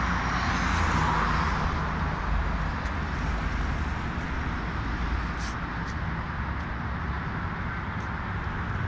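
Steady road-traffic noise: an even rush with a low rumble beneath it.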